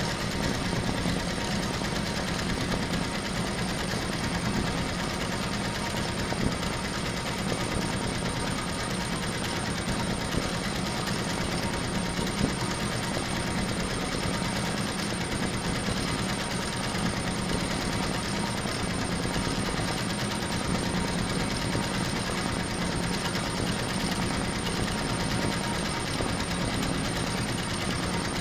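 HSW 12-needle high-speed embroidery machine stitching, a steady rapid mechanical clatter with no let-up.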